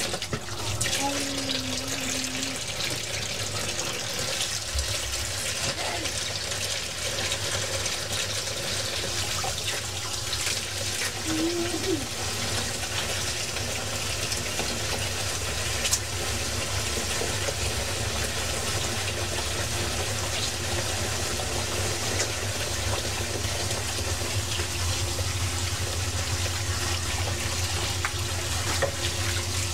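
Kitchen tap running steadily into the sink while dough-covered hands are washed under it.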